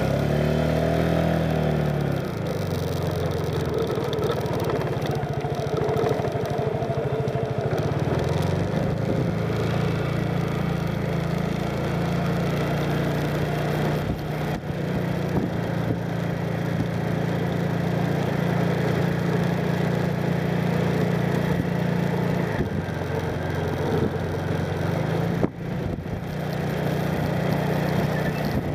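Motorcycle engine running steadily while riding, with wind and road noise. The engine pitch falls over the first two seconds, then holds at a steady cruise.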